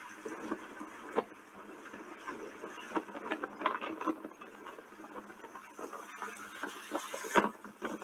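Small sea waves lapping and splashing against rocks, a steady wash broken by many short slaps, with a sharper slap near the end.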